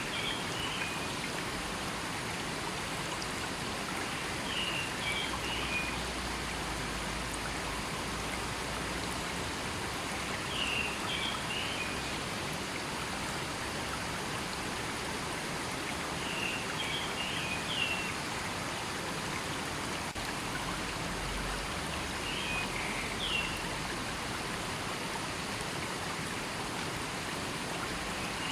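River water flowing steadily, with a short high chirping call repeating about every six seconds over it.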